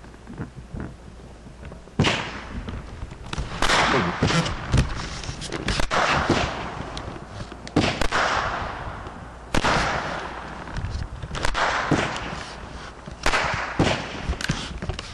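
Consumer fireworks going off: a dense, irregular string of sharp bangs and crackles with hissing trails, starting about two seconds in and coming in clusters.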